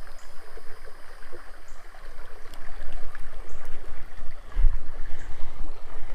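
Small creek running: a steady rush of flowing water, with uneven low rumbling on the microphone that peaks about four and a half seconds in.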